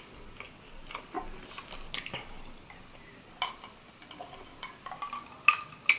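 Sipping iced water from a glass: a few light clinks of ice and glass, with faint mouth sounds in between.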